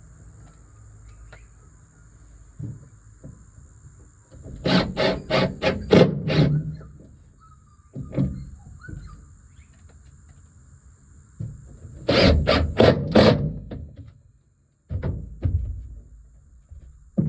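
Two runs of quick, sharp knocks, about three a second. The first run starts about five seconds in and the second about twelve seconds in, with a few scattered clicks between them and a thin, steady high whine throughout.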